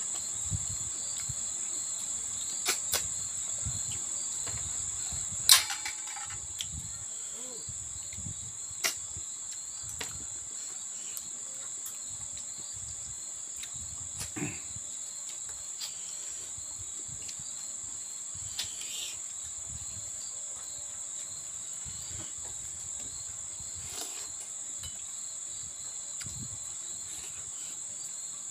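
Insects chirring in a steady, high, continuous trill. Under it are soft chewing and eating sounds, and a few sharp clicks, the loudest about five and a half seconds in.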